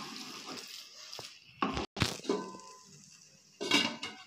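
Stainless-steel lid handled on a cooking pan: a few clinks and knocks of metal on metal, one ringing briefly about two seconds in.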